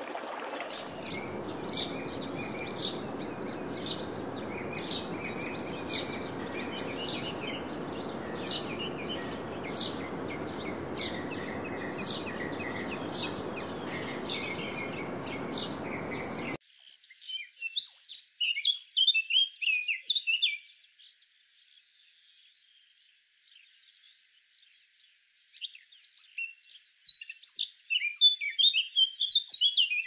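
Birds chirping over a steady rush of flowing water, one bird repeating a short high chirp about once or twice a second. About sixteen seconds in the water sound cuts off, and two bursts of rapid, high twittering bird song follow with a quiet gap between them.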